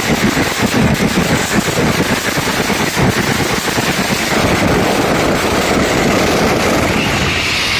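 Mascletà firecrackers going off in a dense, rapid-fire barrage of bangs. In the second half the bangs run together into an almost continuous din.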